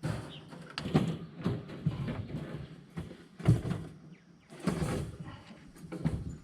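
Wire mesh panels of a rabbit cage rattling and clanking as they are handled and fitted together, in a run of irregular knocks with louder clanks about a second in, halfway through and near the end.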